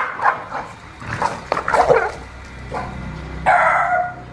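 A dog barking and yipping in quick, short barks during the first two seconds, then a longer held, pitched sound about three and a half seconds in.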